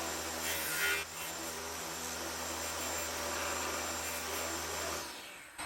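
Table saw fitted with a wobble dado blade running steadily while it cuts a tongue on the end of a wooden door rail, louder for a moment about a second in as the blade bites. The saw is switched off near the end and winds down.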